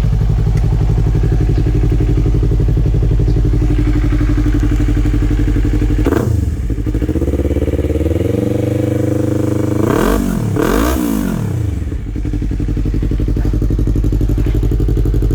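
Yamaha MT-03 motorcycle engine idling, then revved. There is one quick blip about six seconds in, then the engine is held at higher revs for a couple of seconds, then two more quick blips, before it settles back to idle.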